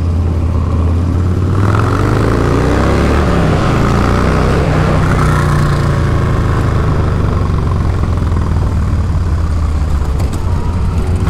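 Harley-Davidson Dyna's V-twin engine running under way, rising in pitch as the bike accelerates from about two seconds in, then running steadily.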